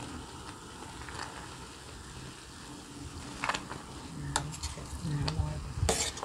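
A metal ladle stirring thick green curry in a stainless steel pot: the ladle scrapes and clinks against the pot several times, most sharply near the end, over a steady low hiss.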